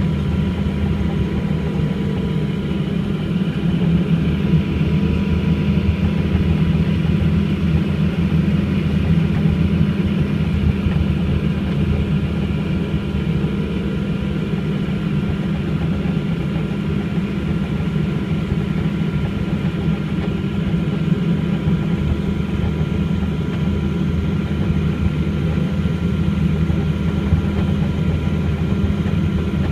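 Embraer EMB 120 Brasilia's turboprop engines and propellers running at low power as the aircraft taxis, heard inside the cabin: a steady deep drone with a faint steady whine above it.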